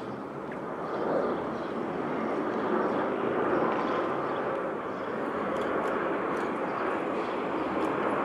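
Subway train approaching on an elevated steel structure, heard at a distance: a steady rumbling rush that grows a little louder about a second in.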